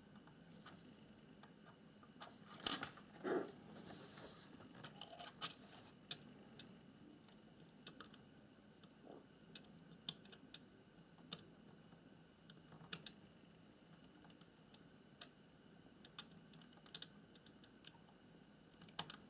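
Scattered small clicks and taps of hand soldering on an SMD chip adapter board: the soldering iron tip and solder wire touching the chip's pins and the board being shifted under the fingers. The sharpest knock comes a few seconds in, and a faint steady high tone runs underneath.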